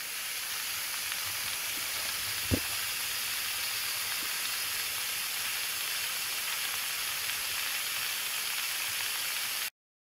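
Water spraying under pressure from pinhole leaks in a plastic water pipe, a steady hiss of fine spray. A single low thump comes about two and a half seconds in, and the hiss cuts off abruptly near the end.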